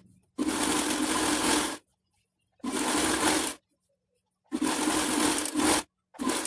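Black household sewing machine driven by an add-on electric motor, stitching a seam in short runs: three runs of about a second each with pauses between, then a brief fourth run near the end.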